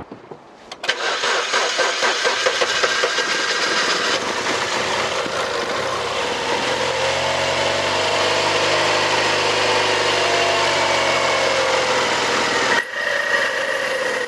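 BMW engine starting about a second in and then running, with pitch rising and falling as the revs settle, and a high belt squeal on top. The engine had been refusing to start on a camshaft sensor fault, and the accessory belt squeals at cold start.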